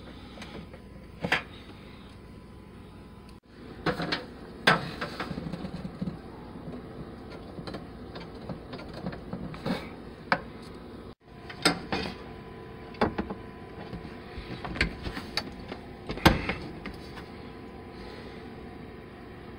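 Irregular clicks and knocks of a hand fitting a wooden Merillat cabinet drawer track into its rear support bracket, over a steady background hum. The sound cuts out completely for a moment twice.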